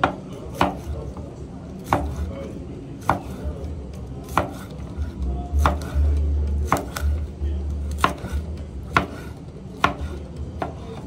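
Large knife slicing through a cooked porterhouse steak, its blade knocking on a wooden cutting board about once a second, ten or so times. A low rumble swells around the middle.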